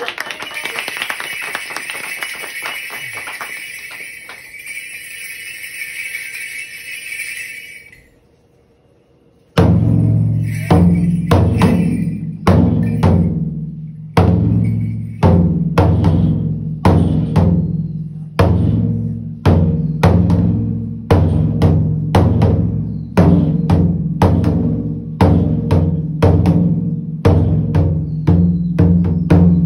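Applause dying away over the first eight seconds or so; then, after a brief quiet, a large Japanese wadaiko drum struck with sticks, deep strokes ringing on in a slow steady beat of about one a second, now and then in quick pairs.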